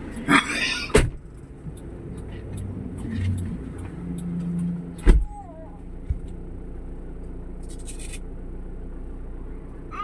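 A motor vehicle's engine running steadily in traffic. A loud rushing burst comes near the start, and sharp knocks land about one second and five seconds in.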